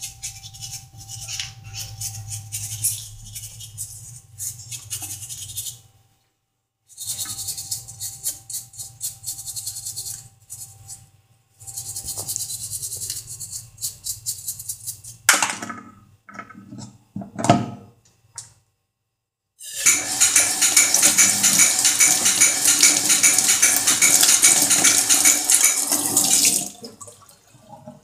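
Toothbrush bristles scrubbing a clogged washing machine inlet filter screen in quick scratchy strokes, in three spells with short pauses and a few knocks after them. About twenty seconds in, a loud steady rush of water comes in for several seconds, then stops.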